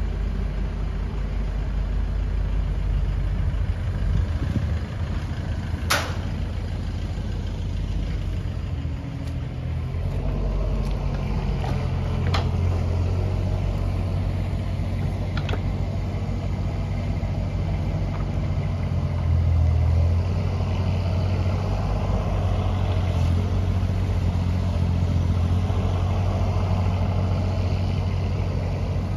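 Engines running steadily: first the Iveco Daily truck, then the Doosan DX19 mini excavator's diesel engine as its bucket works and spreads soil. Three sharp knocks cut through the engine sound.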